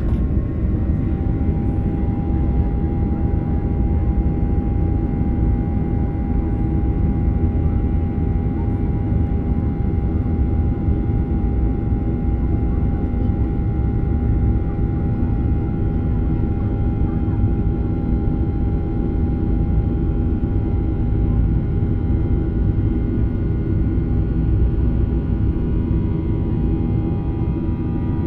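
Boeing 737-800's CFM56-7B jet engines running with a steady whine over a low rumble, heard inside the cabin as the airliner rolls along the runway.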